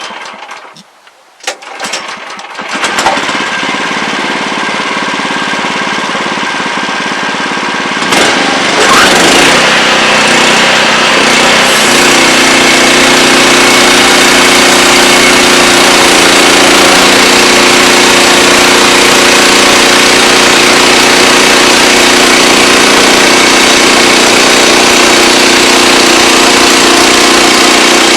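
Wood-Mizer LX25 portable sawmill's engine starting up after a few knocks about two seconds in, getting louder around eight seconds in, then running steadily.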